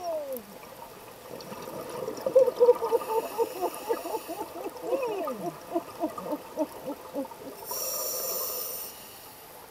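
Scuba diver breathing through a regulator underwater: a long exhale of bubbles burbling out in a quick run of pulses, some sliding down in pitch, then a short hiss of inhaled air about eight seconds in.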